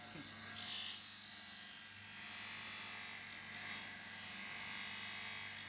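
Electric motor humming steadily as it spins a grinding wheel on a tapered spindle, with a hissing grind from about half a second in as rusted steel pliers are pressed against the wheel, throwing sparks.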